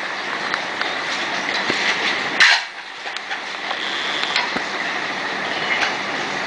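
Bowls knocking and clinking as a small child handles them, with a louder knock about two and a half seconds in, over a steady background noise.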